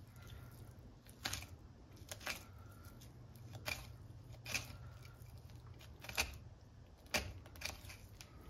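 Filleting knife slicing a halibut fillet away from the fish, a short crisp cutting sound with each stroke, roughly once a second, over a low steady hum.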